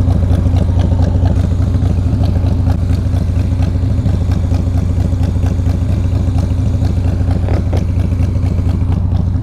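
Harley-Davidson Softail Fat Boy's V-twin engine running steadily with a low, pulsing exhaust note.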